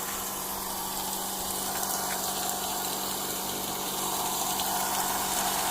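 Homemade pepper-grinding mill running steadily: a constant motor hum with a hiss, growing a little stronger about four seconds in.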